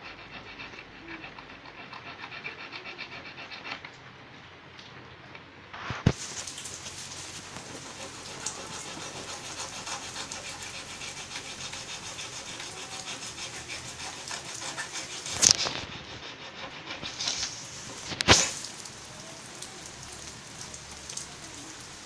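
Metal file rasping back and forth along the steel blade of a multitool knife in repeated strokes, sharpening a blunt edge. Sharp knocks come about six seconds in and twice later, the last the loudest.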